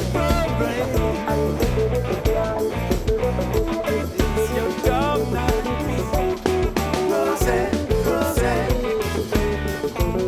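Guitar-led band music with a steady beat.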